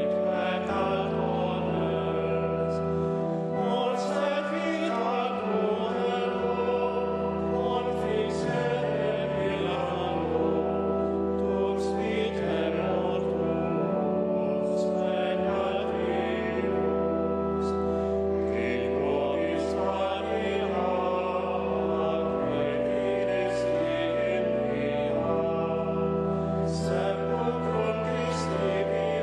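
Choir singing liturgical Latin chant over organ accompaniment. Long held organ bass notes change every few seconds beneath the voices.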